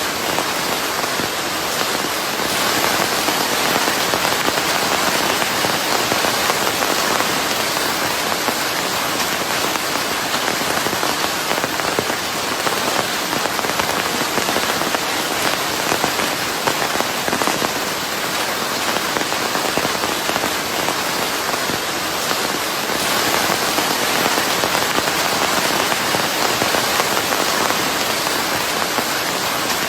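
Steady rain falling, a dense even hiss of many drops, blended with white noise.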